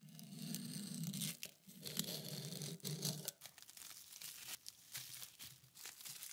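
Utility knife slitting plastic cling wrap wound around a cleaver blade, a loud tearing for about three seconds, then the wrap being pulled off with quieter crinkling and clicks.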